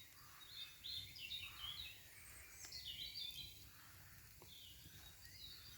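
Faint wild birdsong: a run of quick, high chirping notes for about three seconds, then a few more near the end, over a low steady background hush of woodland.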